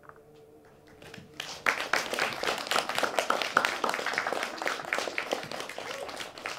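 Audience applauding: dense clapping from many hands starts about a second in, builds quickly, then eases off slightly.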